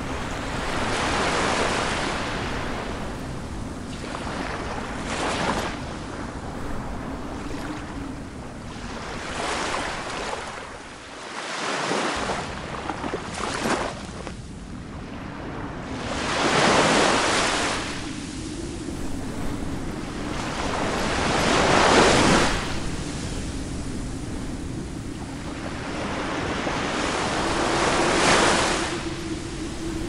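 Ocean surf: waves breaking and washing in as a steady rush that swells into a louder surge every four to six seconds. The biggest surge comes about two-thirds of the way through.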